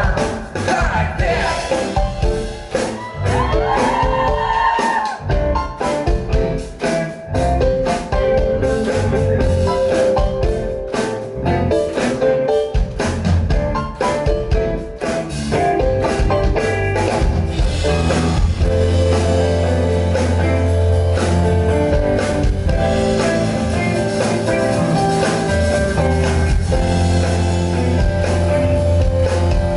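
Live pop-rock band playing loudly: drums, bass and guitar, with a singer's voice most prominent in the first few seconds.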